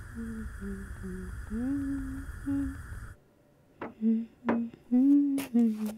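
A person humming a slow tune. A steady hiss under it cuts off abruptly about three seconds in, and the humming then goes on with several sharp clicks.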